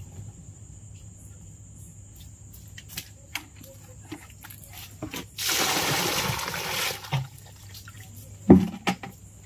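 Indian cobra hissing once from its hole about halfway through: a single rushing hiss about a second and a half long. A soft thump follows near the end.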